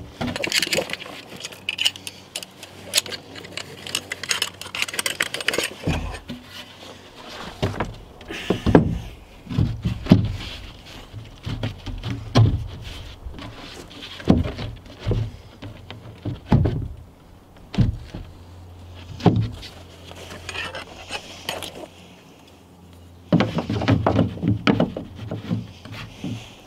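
Plywood panel knocking and scraping against the wooden framing of a chicken coop as it is handled and fitted into the wall: a string of irregular wooden knocks and heavier thumps, with a denser clatter near the end.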